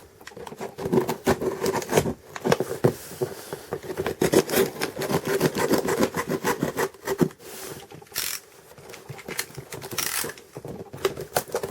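A mailed package being worked open by hand: irregular scraping, rubbing and tearing of paper and tape, with small knocks and clicks of handling and a few longer ripping sounds.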